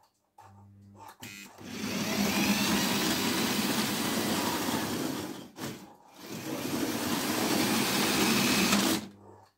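Model electric locomotive running on metal track and hauling a freight train: a steady rattling rumble of motor and wheels that starts about a second in and cuts out briefly twice, about five and a half seconds in and again near the end.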